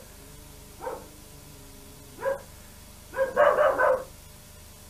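A dog barking: a single bark about a second in, another a little past two seconds, then a quick run of several barks about three seconds in.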